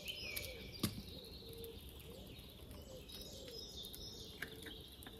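Faint forest birdsong: high chirping calls over a low call repeated about every half second. A single sharp click about a second in.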